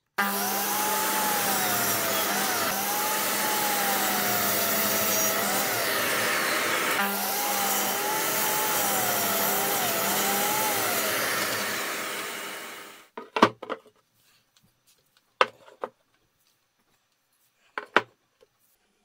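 DeWalt sliding miter saw with a CMT blade running and cutting through a wood slice, its pitch wavering as the blade bites, with a brief break about seven seconds in; the motor dies away after about thirteen seconds. A few light knocks follow as the cut wood slices are set down.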